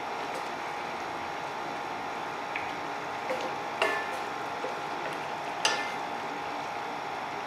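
Squid adobo simmering in a stainless steel pot with a steady hiss while a wooden spoon stirs it, knocking against the pot a handful of times in the middle, the two loudest knocks ringing briefly.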